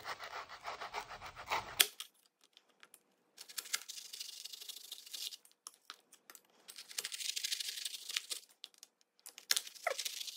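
A knife blade sawing down through a slab of set puffed-grain and nut candy bar. It makes rapid crackling and scraping in runs of a second or two, with short pauses between cuts.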